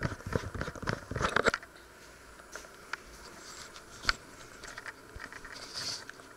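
Handling noise: a quick run of small knocks and clicks for the first second and a half, one sharp knock about four seconds in, then a few lighter ticks and a brief rustle near the end.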